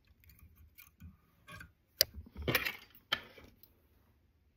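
Whip finish tool and tying thread being worked at the head of a fly held in a vice: small scattered clicks and taps, the sharpest about two seconds in, with a couple of short rustles.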